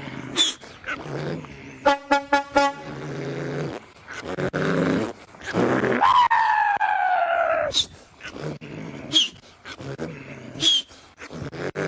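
A man's voice imitating a Mercedes 1313 truck engine: drawn-out engine tones that jump up and slowly fall away, a rapid buzzing rattle about two seconds in, and a few sharp clicks.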